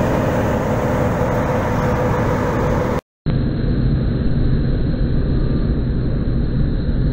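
Loud, steady engine-room machinery noise. It breaks off for a moment about three seconds in and comes back duller, with a low hum underneath.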